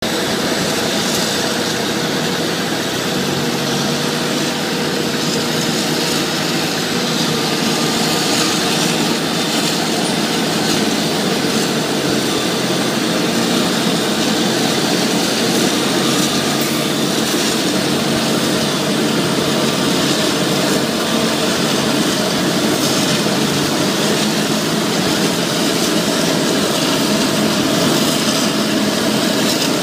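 Claas Jaguar 980 self-propelled forage harvester running under load, chopping standing corn for silage with its Orbis row header and blowing the chopped crop through its spout: a steady, loud machine drone with a hissing rush over it.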